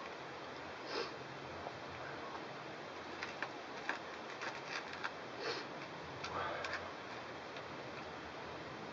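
A man eating with a wooden spoon from a metal plate: a run of light clicks and scrapes of the spoon on the plate mid-way. Short sniffs from a head cold come about a second in and again a little later, over a steady background hiss.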